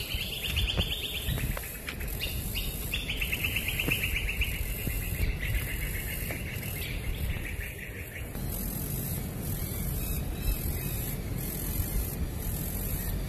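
A bird's rapid, high trill, repeated in long runs that fade out about eight seconds in, over a steady low rumble.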